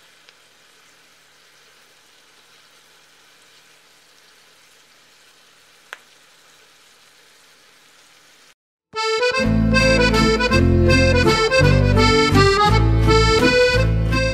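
Sliced onions cooking in butter in a pot, a faint steady sizzle with one soft tick about six seconds in. After a short break, loud accordion music takes over.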